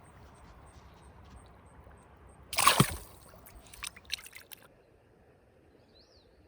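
A small bass let go back into the creek with a loud splash, followed by a few quick handling clicks. A bird gives a short falling chirp near the end.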